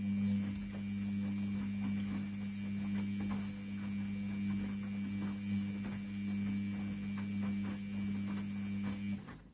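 Washing machine motor turning the drum during a wash cycle with a teddy inside: a steady hum with faint irregular clicks, which stops suddenly near the end as the drum pauses.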